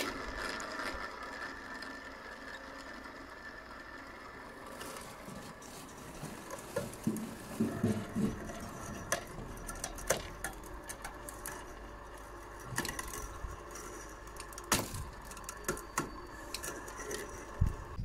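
Stones clacking and knocking against each other as they are loaded into a builder's bulk bag, over a steady motor hum.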